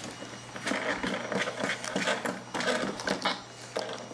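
Hands-on handling noise: packing paper rustling and crinkling, with irregular clicks and light clatter of metal mount parts being set on a projector's casing.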